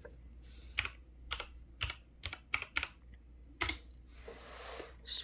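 Computer keyboard being typed on: a string of separate, unevenly spaced keystrokes, the sound of someone typing a search, followed by a brief soft rustle near the end.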